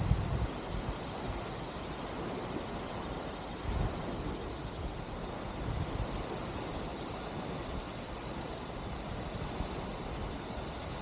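Steady outdoor wind hiss, with a brief gust buffeting the microphone about four seconds in.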